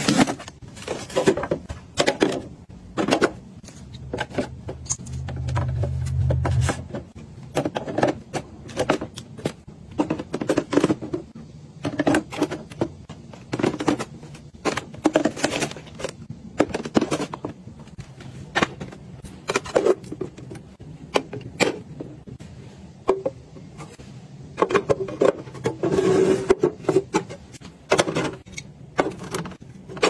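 Plastic bins and clear acrylic drawers being handled and set in place: many quick, irregular clicks, taps and knocks. About four seconds in, a low hum runs for a few seconds.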